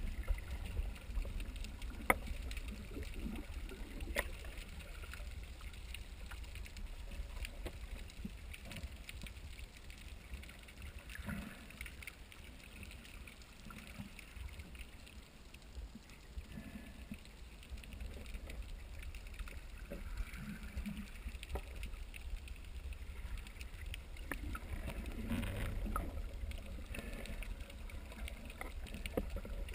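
Faint water sounds over a steady low rumble, with scattered soft clicks and light splashes.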